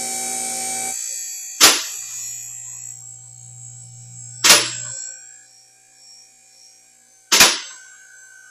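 Car lift's electric pump motor running with a steady hum as the car is raised; it cuts off about a second in, and a lower hum carries on until about halfway through. Three sharp clicks sound about three seconds apart.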